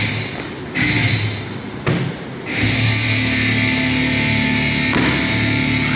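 Loud heavy rock music with distorted guitar and drums, dipping briefly about half a second in and returning at full level near the middle.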